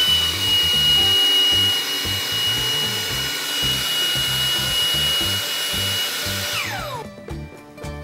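Tineco A11 Hero cordless stick vacuum's motor, just spun up, running with a steady high-pitched whine. It is switched off about six and a half seconds in and its pitch falls as it winds down.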